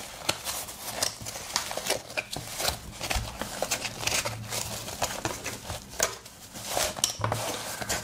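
Rustling and crinkling of a small organizer pouch being handled and turned over, with many light clicks scattered throughout.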